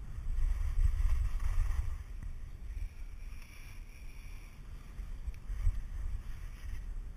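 Wind rumbling and buffeting on an action camera's microphone while riding downhill on snow, with the hiss of edges sliding over groomed snow swelling twice as the rider turns.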